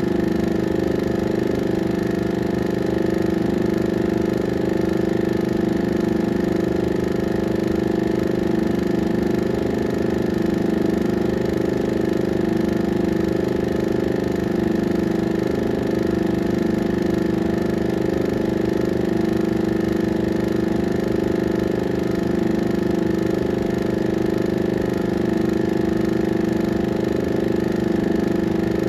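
16mm film projector running steadily: a constant mechanical whirr with a fast, even flutter underneath.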